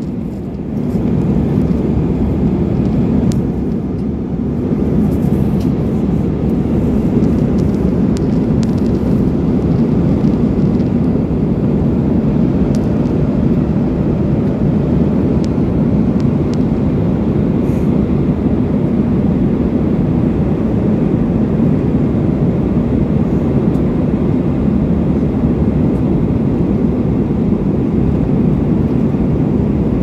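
Jet airliner cabin noise heard from a window seat: a steady roar of engines and airflow as the plane descends.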